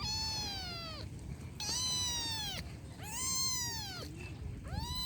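A kitten meowing repeatedly: four high-pitched meows of about a second each, every one rising slightly and then dropping off at its end, with short gaps between them.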